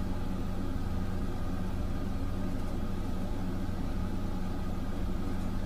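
A steady low hum with a faint hiss, unchanging throughout, with no distinct strokes or knocks.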